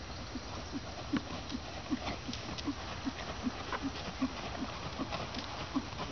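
Horse trotting under saddle on a sand arena: an even two-beat rhythm of muffled hoofbeats, about two and a half a second, with faint scattered clicks.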